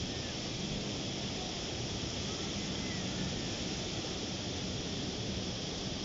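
Ocean surf breaking and washing up on a sandy beach: a steady, even rushing noise.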